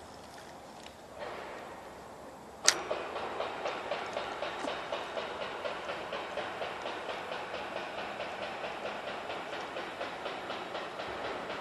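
A spinning fishing reel: a sharp snap about three seconds in, then steady rapid clicking as the reel is cranked.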